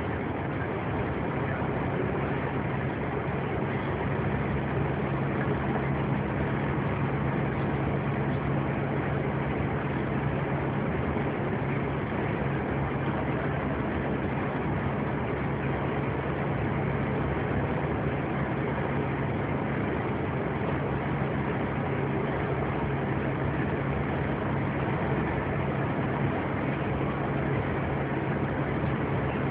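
Engine and road noise inside a moving vehicle cruising at steady speed: a constant low engine hum over an even rush of tyre and road noise.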